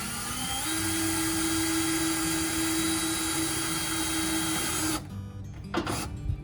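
Electric drill boring a pilot hole for a mounting screw. The motor speeds up, runs at a steady pitch for about four seconds and stops suddenly about five seconds in, followed by a couple of short knocks.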